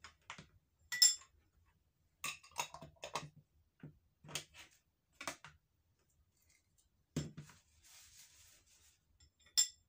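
Metal spoon and fork clinking and tapping against bowls and a glass jar in a string of short, scattered clinks, loudest about a second in. Near the end comes a soft rustle of a paper tissue being handled, then one more clink.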